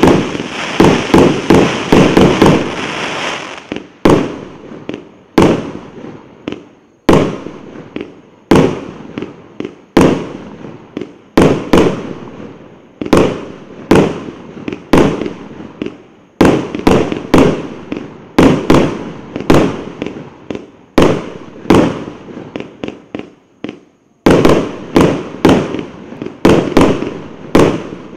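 A 100-shot firework cake of 1.25-inch tubes firing shot after shot, sharp bangs about one to two seconds apart that quicken into faster runs in places. A dense crackling hiss fills the first few seconds.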